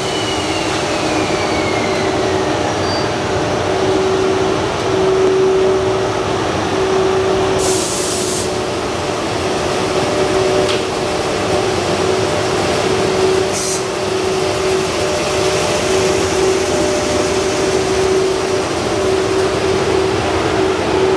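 JR East EF81 electric locomotive pulling a rake of passenger coaches slowly past a station platform as it departs, with a steady hum and rolling rumble. Two short hisses come about eight and thirteen seconds in.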